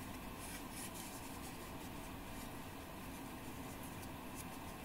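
Faint rubbing and light scuffing of a cloth rag wiping out the front pump seal bore of a ZF automatic transmission, with a few brief scratchy touches.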